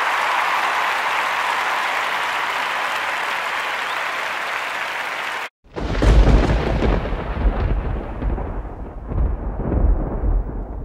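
A crowd applauding steadily, cut off suddenly about five and a half seconds in; then a deep rolling rumble of thunder with irregular swells, louder than the applause.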